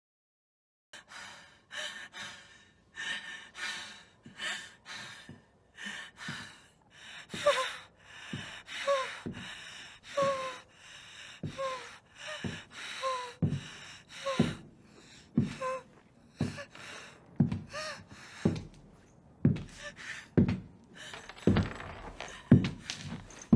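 A woman gasping for breath over and over, with short whimpering cries mixed in. From about halfway, slow footsteps of heeled boots on a hard floor come in under the breathing, roughly one step a second.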